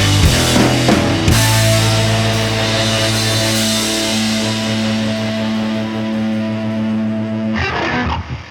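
Background rock music: drum hits in the first second or so, then a long held chord, which breaks off abruptly into a thinner sound near the end.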